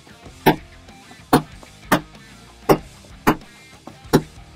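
Hammer striking a large screwdriver to drive the old torque-converter-hub bushing out of a Ford AOD/4R70W transmission pump body: six sharp metal taps, evenly spaced a little under a second apart, kept light so as not to damage the bushing.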